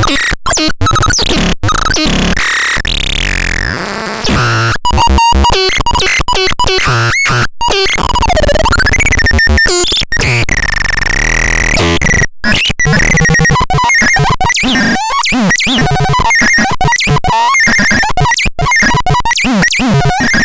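Graveyard Birds electronic noise device being played: a chaotic stream of squealing, warbling pitch sweeps and chirps, broken by many abrupt cut-offs and stutters.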